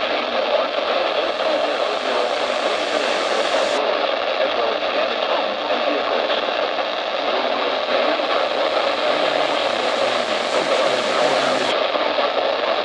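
Steady radio static hiss from a weather radio receiver, with no broadcast audio coming through.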